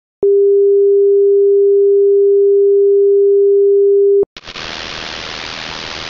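A loud, steady electronic sine tone at one pitch lasting about four seconds and cutting off sharply. After a moment's gap, an even hiss of white noise, like static, begins.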